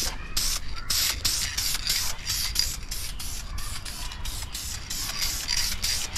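Aerosol can of Dupli-Color vinyl and fabric paint hissing in short, quick bursts, a few a second, as a very light mist coat is sprayed on.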